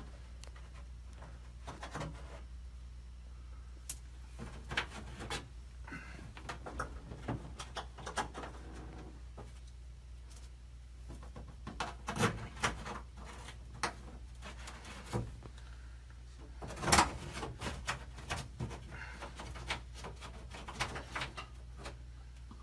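Scattered light clicks, taps and knocks of hand work inside a drag race car's cockpit, over a steady low hum. The loudest knock comes about three-quarters of the way through.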